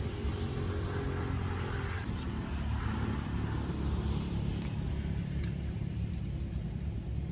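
A motor engine running steadily: a low, even rumble with a faint hum.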